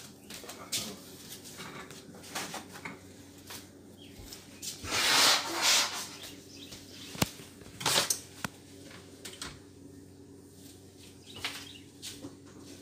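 Handling noise: rustling and knocks from a handheld phone camera being moved about, with a louder rustle about five seconds in and a few sharp clicks, over a faint steady hum.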